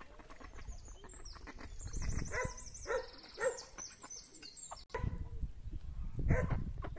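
Ducks quacking in short calls several times, with small birds chirping high and thin over the first part.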